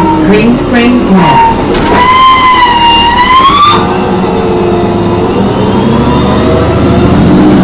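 On board a New Flyer D40LF transit bus, a Cummins ISM diesel drones steadily under a high-pitched screech. Short sliding squeals come first, then a louder wavering screech about two seconds in that lasts nearly two seconds and cuts off. The uploader puts the screech down to the brakes or the Voith transmission.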